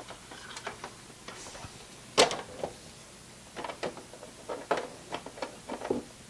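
Irregular clicks and knocks of a part being slid and fitted into a computer case, hard parts tapping against the case, with the sharpest knock about two seconds in and a run of lighter clicks in the last few seconds.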